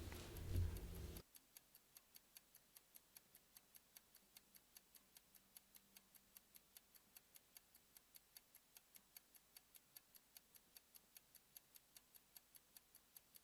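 Faint, even clock ticking, about four quick ticks a second, marking a countdown timer. A louder rushing noise cuts off abruptly about a second in.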